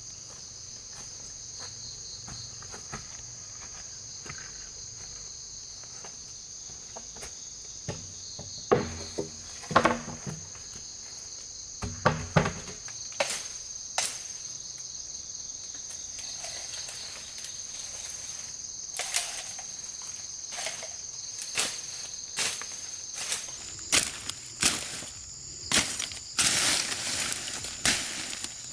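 Rainforest insects keep up a steady, high-pitched chorus. From about a third of the way in, irregular sharp knocks and clacks come through it, more and more often toward the end.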